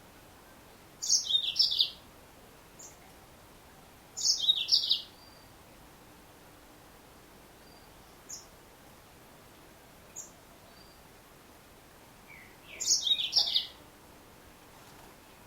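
Female yellow-fronted canary (Mozambique singing finch) calling: three short, high-pitched chirping phrases, each under a second, about a second, four seconds and thirteen seconds in, with a few faint single chips between them.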